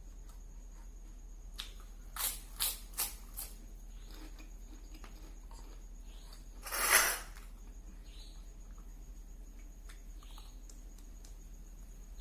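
Close-miked eating: four quick crisp crunches about two seconds in, then one louder short, noisy burst about seven seconds in.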